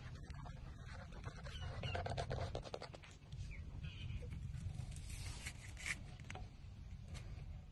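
Newborn puppies suckling at their mother's teats: rapid wet sucking and smacking clicks, busiest in the first few seconds, with a few brief high squeaks, over a low steady rumble.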